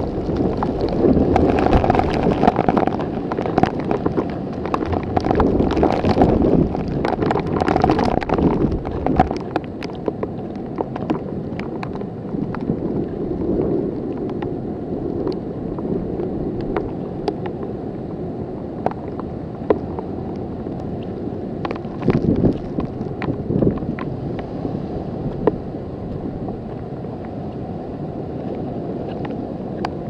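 Typhoon wind buffeting the microphone with heavy rain, in strong gusts for roughly the first ten seconds, then steadier with scattered sharp ticks.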